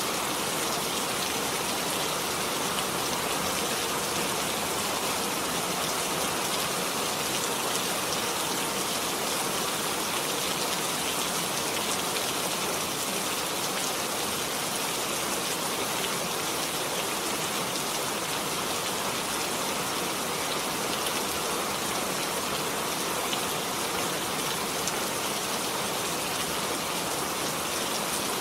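Steady rain falling: an even, unbroken hiss with occasional faint drop ticks.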